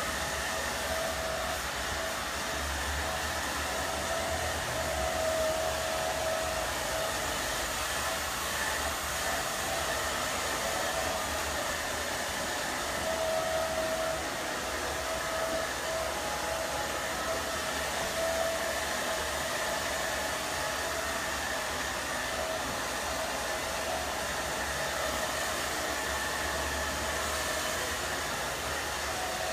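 Handheld hair dryer running steadily, loud, a rush of air with a faint steady whine, blowing out a hairpiece.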